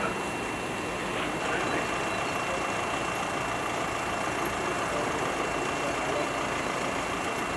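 Vehicle engines idling steadily, a continuous even rumble with a faint steady high tone over it.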